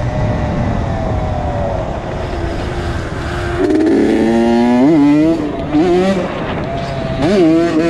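Honda CR80's single-cylinder two-stroke engine running while ridden. It is revved up hard about halfway through, drops back, and is revved again briefly near the end.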